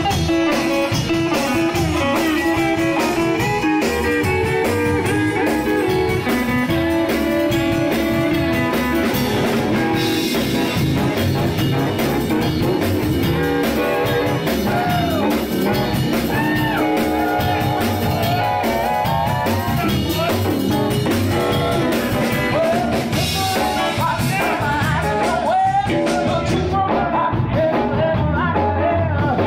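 Background music: a blues-flavoured rock-and-roll song with guitar and a singing voice over a steady beat.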